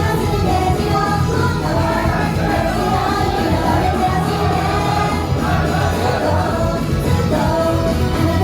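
Live idol pop performance: a group of young women singing together over a loud backing track played through the hall's PA.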